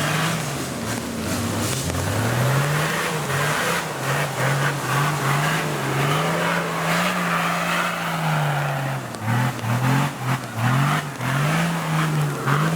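Toyota Land Cruiser's engine revving hard in mud, its pitch climbing and holding for several seconds, then rising and falling in quick throttle stabs in the last few seconds, over a steady hiss.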